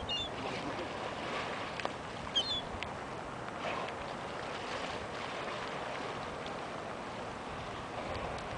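Steady rushing background noise with gulls giving a few short, high calls, one near the start and another about two and a half seconds in.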